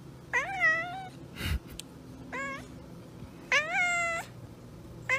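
Tabby cat meowing repeatedly: three drawn-out meows, each sliding up sharply then levelling off, the second short and the third the longest, with a fourth starting near the end.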